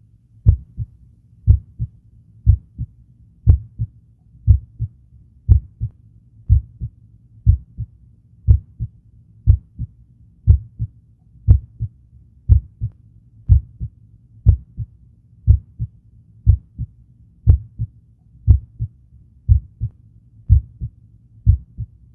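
Normal heart sounds heard through a stethoscope at the heart's apex (mitral valve area): a steady lub-dub about once a second, the first sound louder than the second. A short pause separates the two sounds, and a longer pause comes before the next beat.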